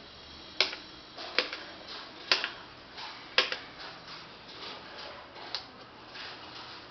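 A string of irregular, sharp clicks. The four loudest come roughly a second apart in the first half, followed by a few fainter ones.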